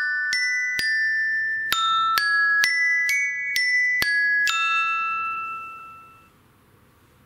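iPhone SE 2020 stock ringtone: a melody of bright, glockenspiel-like struck notes, about two a second. The last note rings on and fades out about six seconds in.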